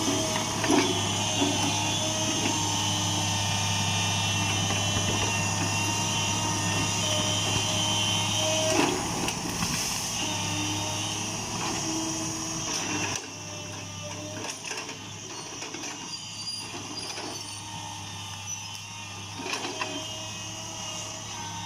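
Hitachi UH045-7 excavator running steadily, with higher tones that come and go over the low engine hum. The sound drops to a lower level about 13 seconds in.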